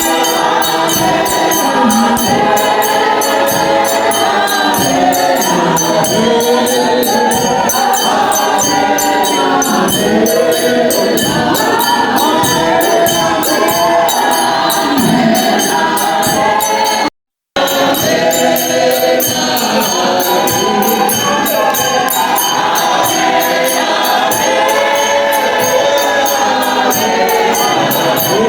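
Background music: a choir singing over a steady, quick beat. The music cuts out for a split second about seventeen seconds in, then carries on.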